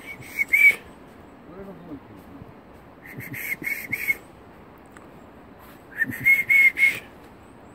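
Groups of short, high whistled notes, a few quick pips each, heard three times: at the start, about three seconds in, and about six seconds in.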